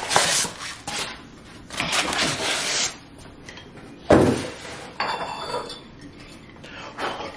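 Packing material rustling in a cardboard box as a ceramic cup and saucer are unpacked, with clinks of the ceramic and a thump about four seconds in.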